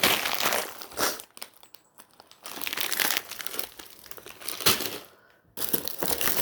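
Plastic candy wrappers and bags crinkling and rustling as packaged candy is handled, in irregular bursts with a couple of brief pauses.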